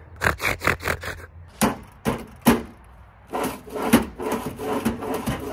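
Metal drawers of a Craftsman tool box run on dry slides: a quick string of clicks and knocks, then from about three seconds in a long scraping slide. The slides want WD-40 or grease.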